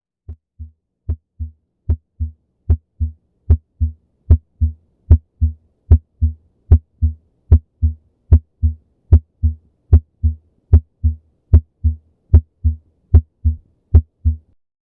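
Normal heart sounds heard through a stethoscope: a steady 'lub-dub' pair each beat, about 75 beats a minute, with silence between beats and no murmur. The beats fade in over the first couple of seconds.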